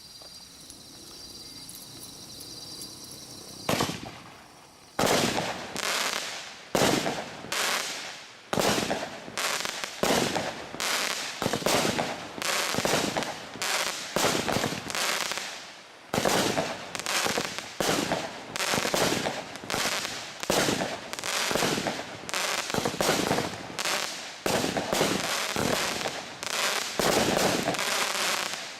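TNT Fireworks 'Celebration of Lights' consumer barrage firing: a first bang about four seconds in, then a long run of sharp bangs, often several a second, that stops just before the end.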